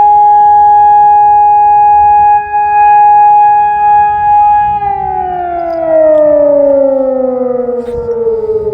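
Mars-Arsenal AS-600 electronic civil-defence siren with a BAO-600 acoustic warning unit, sounding a wail on a scheduled warning-system test. A loud held tone begins sliding down in pitch about five seconds in.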